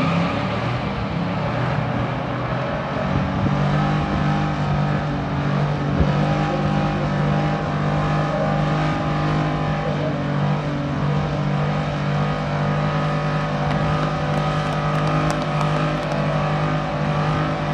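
A muscle car's engine held at high, steady revs during a burnout, with the rear tyres spinning against the pavement.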